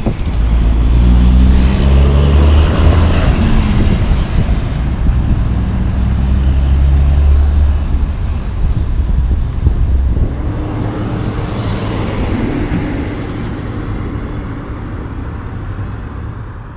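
Road traffic at an intersection. A heavy truck engine runs loud and low, rising in pitch over the first few seconds as it accelerates, then dies away after about eight seconds, leaving a lighter steady noise of passing cars.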